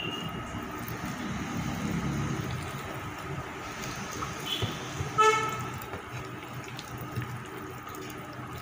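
Hands squeezing and mixing boiled octopus pieces in a wet egg, flour and cornflour batter on a plate. A short horn toot cuts in about five seconds in and is the loudest sound.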